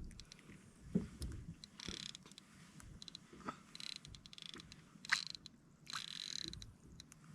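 Shimano Ocean Jigger 1000 fishing reel being cranked in several short spurts, its gears whirring and clicking under the load of a heavy fish on the line. The spurts are about a second apart.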